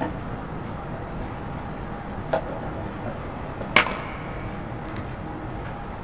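Two sharp knocks from a YOYO baby stroller's frame being handled and set upright on its wheels, the second one louder and briefly ringing, over a steady background hum.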